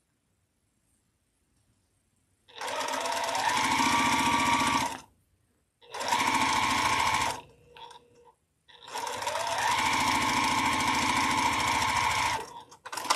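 Juki sewing machine stitching in three runs, starting about two and a half seconds in. Each run begins with the motor whine rising as it speeds up, then holds steady. A short sharp click comes right at the end.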